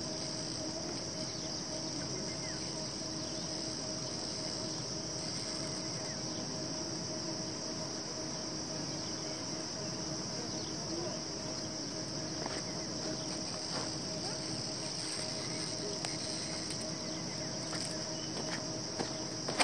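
Steady, unbroken high-pitched chorus of insects, crickets or cicadas, with a faint steady low hum beneath it.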